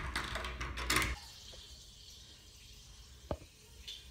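Water running in a public toilet for about the first second, with a click from the cubicle door latch as it is unlocked. The sound then drops to quiet room tone, with a single short knock about three seconds in.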